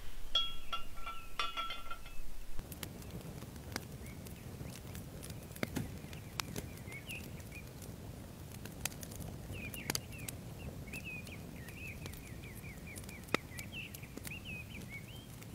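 Cast-iron grill rack clinking and ringing as it is set down into a cast-iron skillet, then scattered light clicks and knocks as marrow bones and vegetables are laid on the rack. Small birds chirp in a quick repeated series from about ten seconds in.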